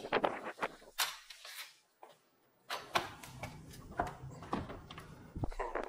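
Scattered clicks and light knocks of a hand working a metal handle on an aluminium window frame, with a short quiet gap about two seconds in.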